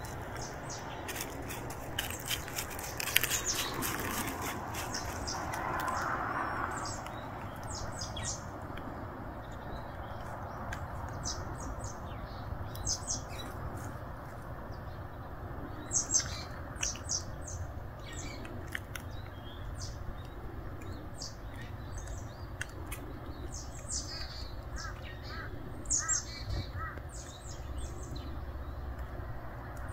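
Small birds chirping, many short high chirps scattered throughout, over a steady low background rumble. In the first few seconds there is also some rustling.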